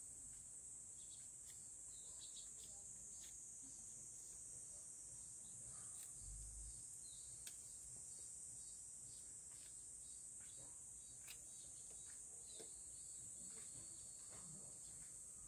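Faint, steady high-pitched insect drone, with scattered soft crisp ticks and rustles of green onion stalks being stripped and peeled by hand.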